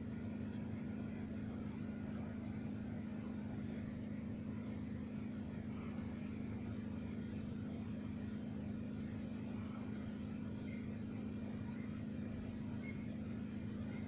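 A steady low mechanical hum that holds an even level without change.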